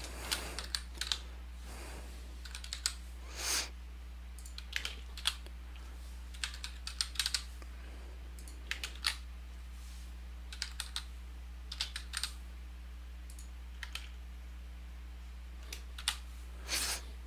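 Typing on a computer keyboard: irregular keystrokes, a few at a time with pauses between, over a steady low hum.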